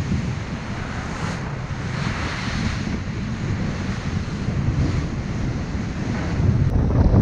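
Wind buffeting the microphone over the rush and splash of water along the hull of a sailing yacht moving fast through choppy sea, with spray breaking up beside the bow. It grows louder near the end.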